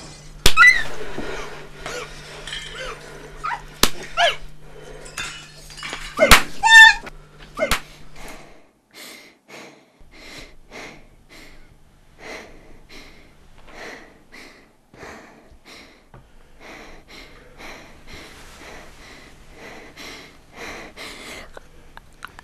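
Sounds of a violent assault: several sharp blows within the first eight seconds, mixed with sliding cries and a yell of pain. After that comes a quieter run of short, evenly spaced sounds, about two a second, over a faint low hum.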